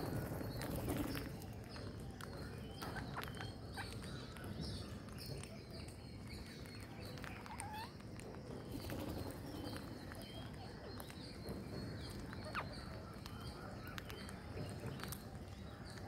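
Rose-ringed parakeets feeding on seed: scattered short high chirps and calls, with frequent sharp clicks of beaks picking and cracking seed on the concrete ledge, over steady low background noise.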